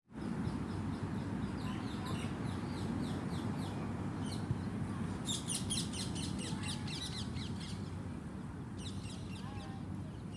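A bird chirping in a rapid series of short, high calls, busiest and loudest for a couple of seconds about halfway through and again near the end, over a steady low rumble.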